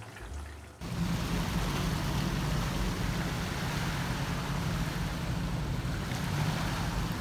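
Seaside ambience: wind rushing over the microphone with the wash of the sea, cutting in abruptly about a second in. Before it comes a brief sizzle of vegetables frying in oil.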